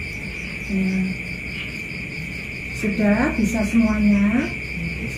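Crickets chirping steadily, a constant high trill with a pulsing beat of about four a second. A woman's voice speaks briefly about three seconds in.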